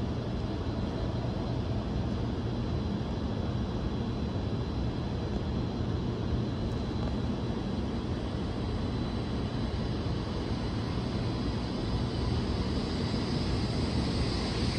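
Steady low rumble of a 700 Series Shinkansen train (Hikari Rail Star set) approaching the platform. It grows louder over the last few seconds as the train comes into view.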